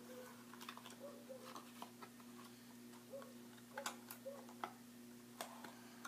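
Faint handling of folded paper leaflets and a small cardboard box: a few light clicks, taps and rustles, the sharpest about four and five and a half seconds in, over a steady low hum.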